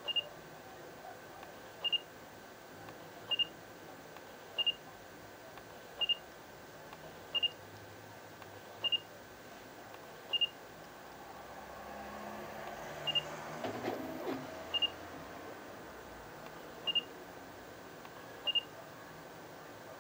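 Samsung NX10 mirrorless camera's autofocus-confirmation beep, a short high beep sounding twelve times, roughly every one and a half seconds, each time the autofocus locks. A soft rustling swell comes about two-thirds of the way through.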